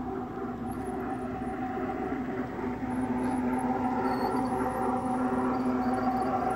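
LGB G-scale model of Rhaetian Railway Bernina railcars running on garden track: a steady hum from the motors and gearing over the noise of the wheels on the rails, growing louder about three seconds in as the train passes close.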